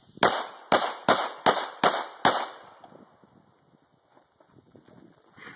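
Pistol fired six times in quick, even succession, a little over two shots a second, each shot with a short echo. A quieter pause follows.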